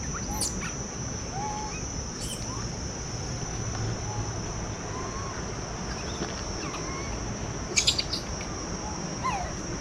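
Tropical forest ambience: birds calling with short gliding whistles and a few sharp chirps, the loudest chirps near the end, over a steady high-pitched insect drone.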